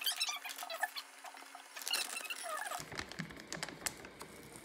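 Metal wire whisk clicking and scraping against a glass mixing bowl as dry flour is stirred: a quick, irregular patter of light ticks and taps, with a few faint squeaks.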